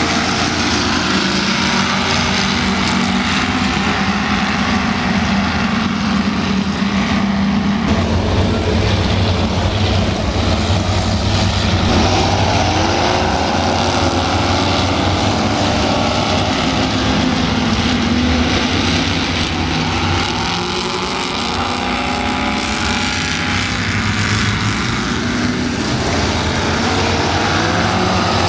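Several offshore racing powerboats running loud at high throttle as they accelerate past, a steady low engine drone with engine notes sweeping up and down as individual boats go by.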